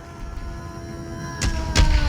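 Ominous, tense music with sustained notes slowly sliding down in pitch and swelling, cut by two heavy booms about a second and a half in.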